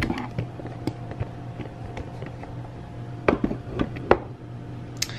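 Scattered light clicks and knocks of kitchen items being handled and set down at a counter, over a steady low hum.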